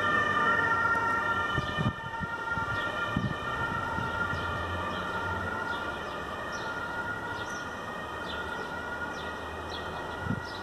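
A siren sounding and slowly fading, over a low rumble.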